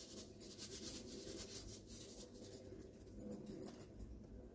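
Faint, light rustling and scratchy ticking as vanilla sugar is shaken out of a small paper sachet, the paper crinkling and grains falling; it fades out near the end.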